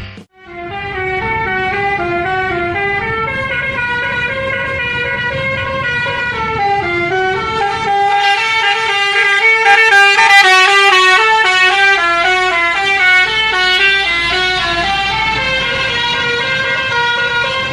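Telolet horn, a set of Basuri multi-tone air-horn trumpets, playing a stepping melody with several horn notes sounding together. It is loud throughout and loudest around the middle.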